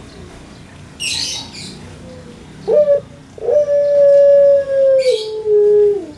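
Collared dove (puter pelung) cooing: a short note, then one long drawn-out coo held steady that steps down to a lower note and drops away at the end. A brief hissy rustle comes about a second in, and another as the pitch steps down.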